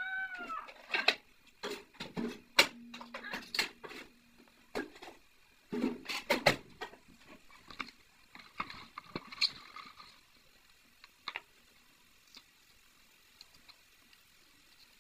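A cat meows once at the very start. Then come sharp clicks and knocks of a knife cutting vegetables held in the hand, with the pieces dropping into a clay cooking pot. These are busiest in the first seven seconds and thin out to a few faint ticks near the end.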